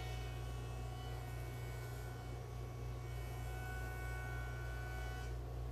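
Floor-standing jointer running steadily, a low hum with a steady whine above it, as the edge of a large wooden slab is fed across its cutterhead.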